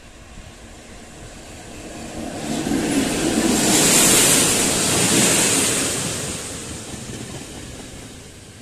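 Electric locomotive hauling a passenger train passing close by: the rumble and rail noise swell to a loud peak about four seconds in as the locomotive goes past, then ease off as the coaches roll by.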